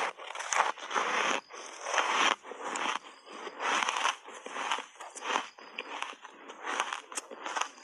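Ice chunks coated in matcha powder crunching between teeth: a bite, then chewing in a run of irregular crunches, loudest in the first two seconds.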